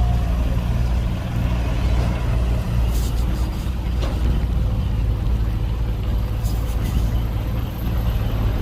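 Heavy diesel engine of earthmoving machinery running steadily, a deep low sound, with a few brief clicks or knocks near the middle.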